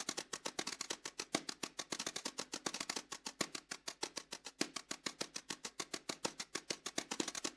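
Snare drum played with wire brushes: a fast, even run of light strokes, about ten a second.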